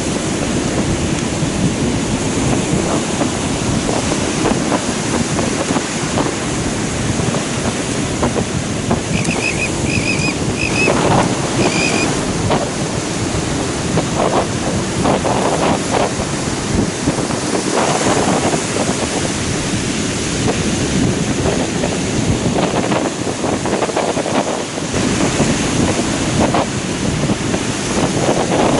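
Ocean surf breaking and washing up the beach, with wind buffeting the microphone, as a steady rushing noise that swells with each wave.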